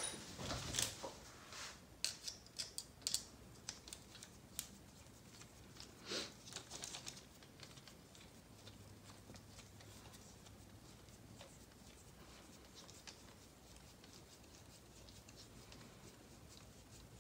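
Hard plastic RC car parts clicking and knocking as they are picked up and handled, with a run of sharp clicks over the first several seconds. After that come only faint, scattered ticks as a hex driver turns a screw into the plastic chassis.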